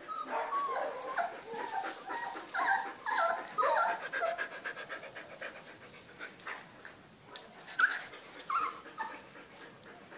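Siberian husky puppies whining and yipping in a string of short, high calls that rise and fall over the first four seconds. Two more brief high yelps come near the end.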